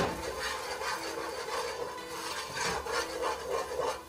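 Wire whisk scraping repeatedly against the bottom of a stainless steel pot as flour is whisked into melted butter and onions to make a roux. A sharp knock right at the start.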